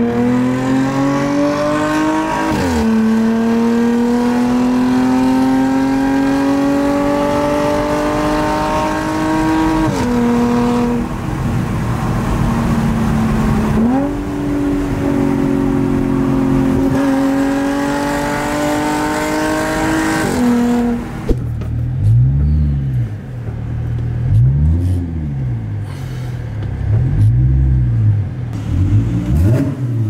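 Audi car engine heard from inside the cabin under hard acceleration, its note rising in pitch and dropping back at each of several upshifts. In the last third the engine note gives way to a lower sound that swells and falls about every two seconds.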